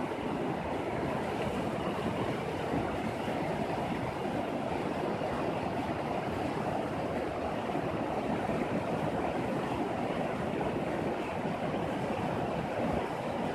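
Mountain river rushing over a stony bed, white water running over rocks in a steady, unbroken rush.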